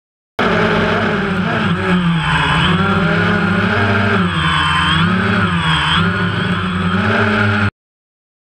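DJI Phantom quadcopter's motors and propellers whining close to the microphone, their pitch rising and falling together as the drone speeds up and slows while manoeuvring. The sound cuts in and cuts off abruptly.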